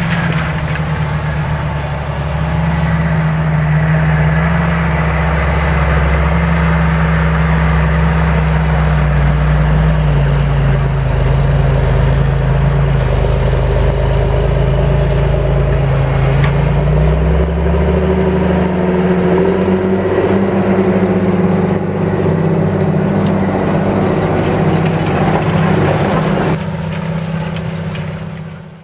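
John Deere 8430 tractor's six-cylinder diesel engine running steadily, typical of a tractor pulling a cultivator. Its pitch sags for a few seconds midway and then rises again, and the sound fades out near the end.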